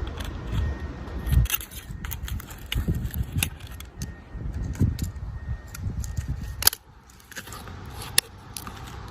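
A hammer knocking and scraping against the bent metal body of an iPhone 7 as it is pried at: irregular clicks, scrapes and dull knocks, with one sharp click about two-thirds of the way through.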